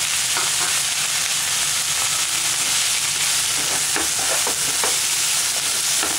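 Chopped vegetables sizzling in a little oil in a frying pan, a steady hiss. From about three and a half seconds in, a wooden spatula scrapes and tosses them in short strokes.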